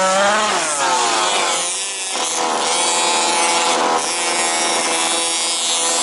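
Small petrol two-stroke engines of 1/5-scale off-road RC buggies racing, their buzzing pitch rising and falling as the cars accelerate and back off.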